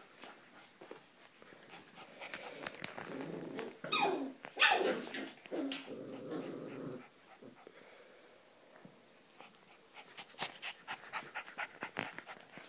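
A border collie and one-month-old puppies play-growling, with two sharp yelps falling steeply in pitch about four seconds in. Near the end come a run of light clicks and scuffles.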